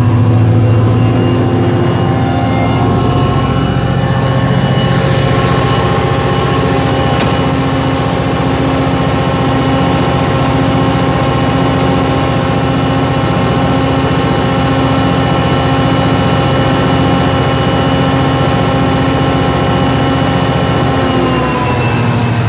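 EMD HGMU30 diesel-electric locomotive's 16-cylinder 645 two-stroke diesel engine running steadily at full throttle, notch 8, with the locomotive standing and not under load. Near the end the pitch starts to drop as the engine winds down from notch 8.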